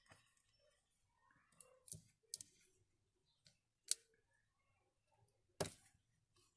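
A few sharp, light clicks and taps with faint rustling as fabric squares and pins are handled and set down on a tabletop, the loudest click about four seconds in.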